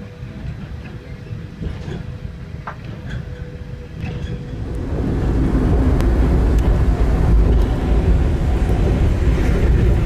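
Running noise of the Centovalli Railway's narrow-gauge electric train, heard from inside a carriage: a steady low rumble of wheels on track that grows clearly louder about halfway through. A faint steady hum sits under it in the first half.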